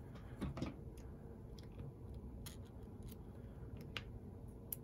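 Faint, scattered small metal clicks and scrapes of a screwdriver backing out the large screw that holds the magnet at the back of a small model-train motor.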